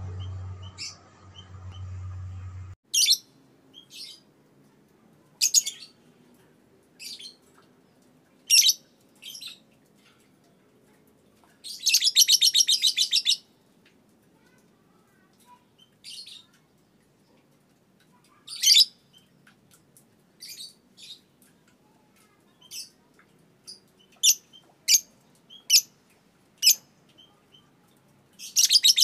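Young Fischer's lovebird giving sharp single chirps scattered through, with a rapid rattling chatter (ngekek) of about a second and a half midway and another beginning near the end. A low steady hum sounds for the first three seconds.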